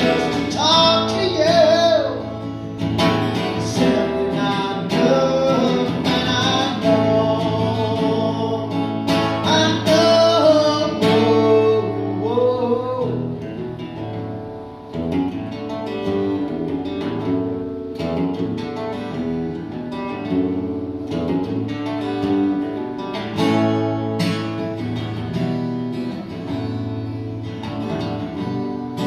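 Acoustic guitar strummed in a steady rhythm while a man sings a folk-style song over it; the voice drops out a little under halfway through and the guitar carries on alone.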